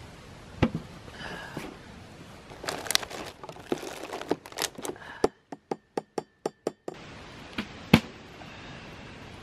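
A plastic camp cooler and a glass beer bottle being handled: a string of clicks, knocks and clinks, with a quick run of even ticks in the middle and a sharp knock about eight seconds in, over a crackling campfire.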